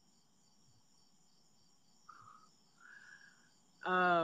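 Faint, high-pitched insect chirring that goes on steadily in a regular pulsing pattern. Near the end a man makes one short, louder vocal sound.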